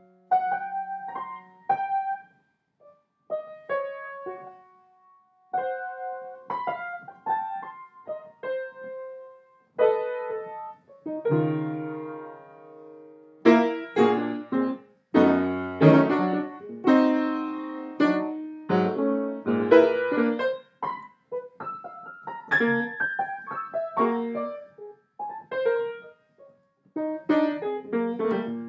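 Piano playing: sparse single notes and light chords at first, then louder, fuller chords with low bass notes from about halfway through.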